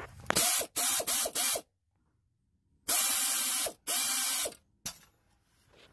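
Air ratchet running in several short bursts, each a loud hiss with a steady whine, as it spins a torque converter bolt out through the flex plate. The bursts come in two groups: four quick ones, a pause of about a second, then two longer ones.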